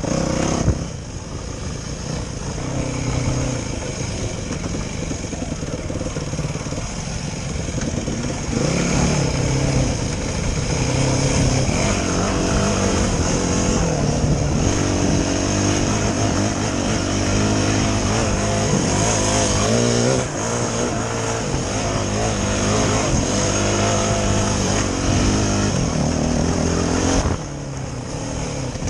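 Yamaha dirt bike engine revving up and down as it is ridden along a trail, its pitch rising and falling with the throttle and gear changes; it is ridden harder through the middle and eases off shortly before the end.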